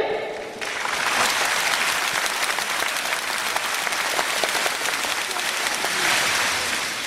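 Audience applause breaks out about half a second in and keeps going steadily, easing slightly near the end. It follows a long shouted call that trails off at the start.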